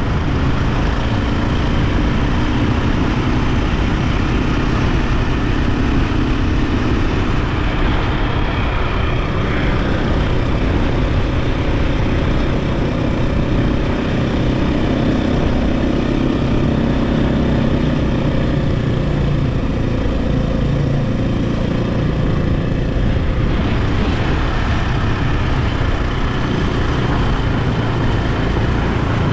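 KTM 520 dirt bike's four-stroke single-cylinder engine running steadily while the bike is ridden, with noise from the ride mixed in.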